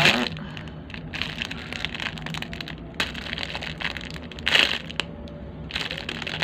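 Small foam squishy toy being squeezed and handled in the hands, a dense crackling and rustling, with a louder burst about four and a half seconds in and another near the end.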